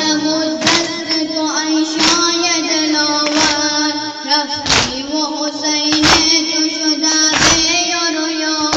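A nauha (Shia mourning lament) sung in long, held notes, over the mourners' sina zani: hands striking chests together in unison, a sharp beat about every second and a third, six times.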